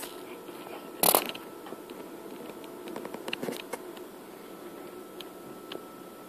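Kitchen bowl-and-pan handling: a sharp clatter about a second in, then light scrapes and clicks as banana bread batter is tipped from a mixing bowl into a loaf pan.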